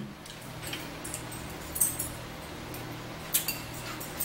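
Metal forks clinking a few times against plates during a meal, over a steady low hum.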